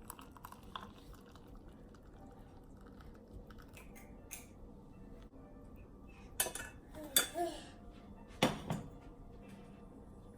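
Kitchenware clinking: a pan, strainer and cup knocked together a few times in the second half, the loudest near the end, as boiled turmeric water is strained into a cup.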